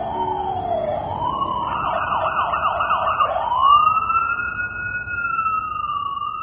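Emergency vehicle siren: a slow falling wail, then a fast warble for about a second and a half, then a slow wail rising again and held.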